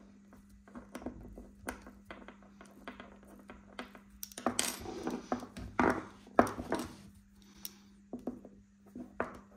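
Light metallic clicks and clinks of small tools working at a Shimano BL-M8000 brake lever, pushing at its loosened lever screw to get it out. There is a busier run of louder clinks in the middle.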